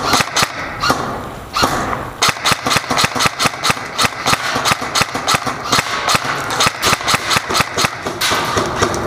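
Airsoft guns firing: sharp cracks in irregular runs of several shots a second.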